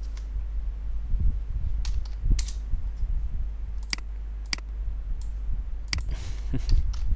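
Computer mouse clicks, single sharp clicks a second or so apart, then a short quick run of keyboard keystrokes about six seconds in, over a steady low electrical hum.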